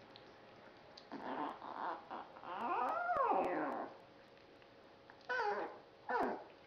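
A puppy whimpering and whining: a few short whimpers, a longer whine that rises and falls about three seconds in, and two short falling cries near the end.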